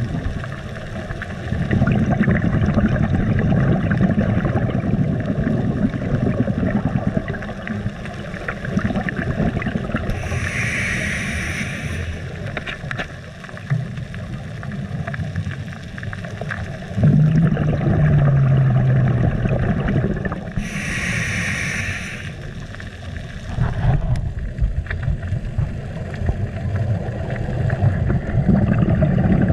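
Underwater sound on a scuba dive: a steady low rumble of water noise, with two hissing breaths through a diver's scuba regulator about ten seconds apart.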